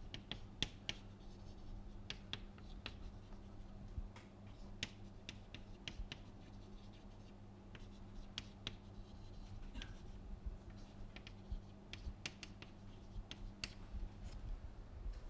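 Chalk writing on a blackboard: a string of sharp taps and short scratches as words are chalked up, over a low steady hum.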